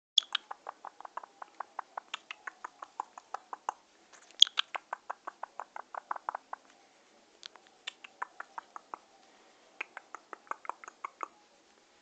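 Indian ringneck parakeet making quick runs of sharp clicks, about six a second, in several bursts with short pauses about four and seven seconds in. The owner reads the display as the bird being in love.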